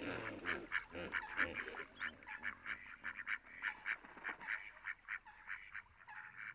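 A flock of flamingos calling: a dense chorus of short calls repeated several times a second, with some lower calls in the first two seconds.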